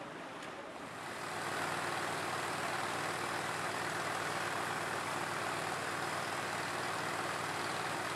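From about a second in, water gushes steadily out of the outlet of a pumped layflat hose discharging floodwater, over the steady drone of the pump's engine.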